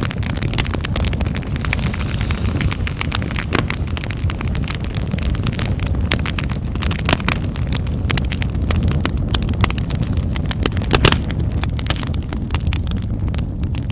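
Wood fire burning in a fireplace: dense crackling and snapping with several louder pops scattered through, over a steady low rumble of the flames.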